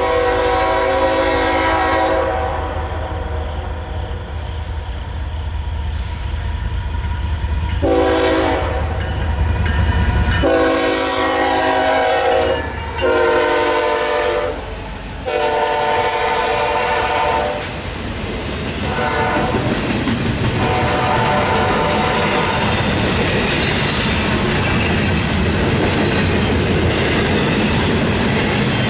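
Norfolk Southern freight locomotive horn sounding a series of long blasts at a grade crossing over the deep rumble of diesel engines; the later blasts are fainter as the locomotives pass. From about the middle on, the steady rumble and clatter of intermodal freight cars rolling over the crossing takes over.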